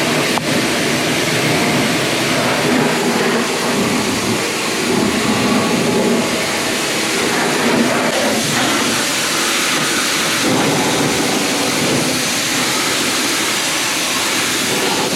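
Pressure washer jet spraying water onto a car's body and into its door, a steady loud rush of spray and splatter.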